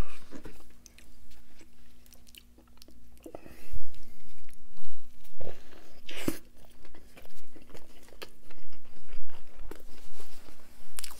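A person biting into a double Big Mac and chewing it close to the microphone, with small crunches and crackles. The strongest crunch is the bite about six seconds in.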